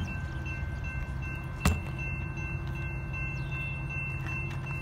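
Low, steady rumble of an approaching diesel freight train, with a railroad crossing bell ringing as a steady high chime, and one sharp knock about two seconds in.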